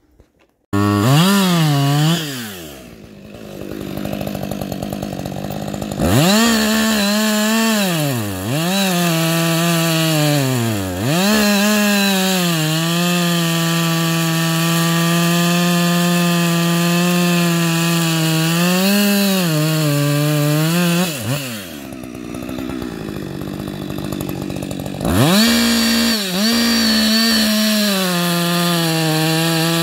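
Husqvarna 560XP two-stroke chainsaw with an Oregon .325 ripping chain, cutting wood. It comes in abruptly about a second in and settles to idle. It then revs up and holds a long, steady high-speed run, its pitch sagging briefly now and then under load. It drops back to idle, then revs up into the cut again near the end.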